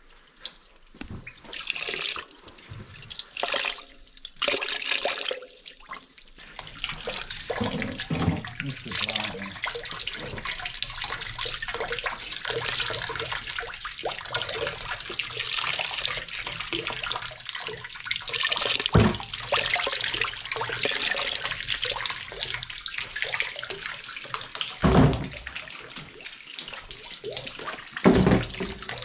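Dirty wastewater running out of the open cleanout of a still-blocked drain pipe and splashing into a plastic tub below, steady from about six seconds in. There are a few scattered knocks at the start and a few dull thumps in the second half.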